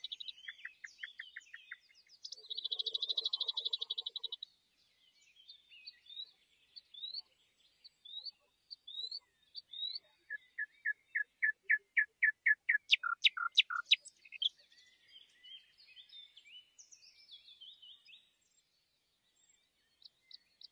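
Songbirds singing: fast buzzy trills, a run of short upslurred whistles, then a quickening series of loud clear notes that breaks off into downward sweeps, followed by softer jumbled phrases.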